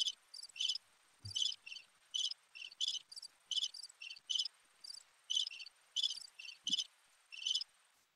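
Insect chirping, like a cricket: short high chirps, about three a second at an uneven pace, over a faint hiss and a thin steady high whine, stopping just before the end.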